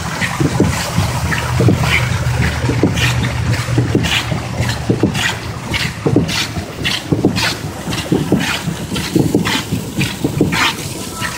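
Pedal boat's paddle wheel churning and slapping the water in a steady rhythm, about three splashes a second.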